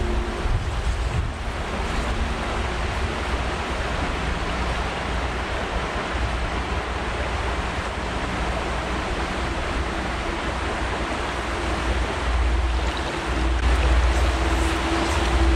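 Steady rush of a shallow creek running over stones, with a low wind rumble on the microphone that grows stronger near the end.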